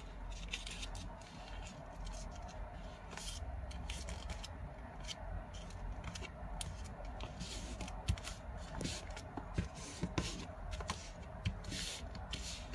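A sheet of origami paper being folded and creased by hand: repeated short rustles as fingertips rub and press along the folds, with a few sharper crackles of the paper in the second half.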